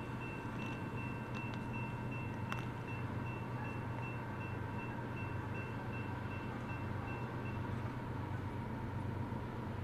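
Train running past the tracks with a steady low rumble. A high ringing tone pulses evenly over it and stops about three-quarters of the way through.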